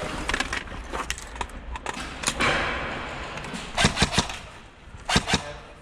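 Airsoft guns firing: sharp clicking cracks in short, quick strings, the loudest volleys of three or four shots coming about four and five seconds in.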